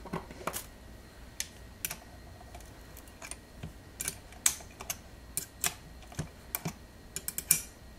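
Irregular sharp clicks and taps of small tripod parts and tools being handled on a table, with a cluster of quicker clicks near the end.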